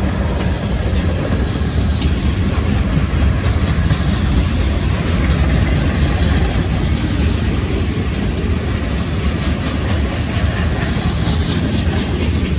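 Steady, loud rumble of steel wheels on rail as a CSX mixed freight train's cars, covered hoppers, tank cars and a boxcar, roll past.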